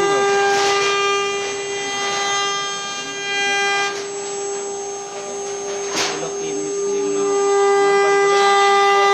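CNC router spindle running with a steady whine, with two sharp clicks about four and six seconds in.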